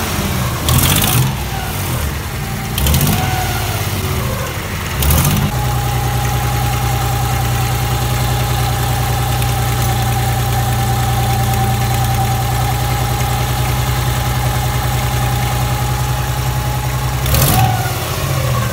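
Nissan Z31 300ZX's V6 engine running, revved in a few short blips over the first five seconds and once more near the end, with a steady idle in between. It is running on only five cylinders, one cylinder misfiring.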